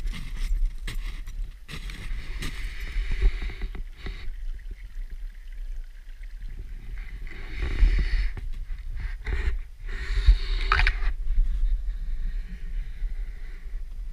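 Footsteps crunching through snow, irregular and close, over a steady low rumble on the camera's microphone.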